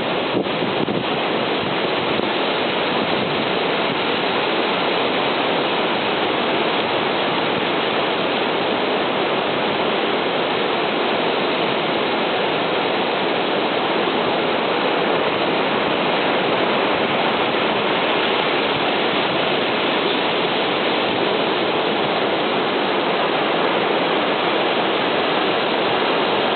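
Ocean surf rushing on the shore: a steady, even hiss with no distinct wave surges.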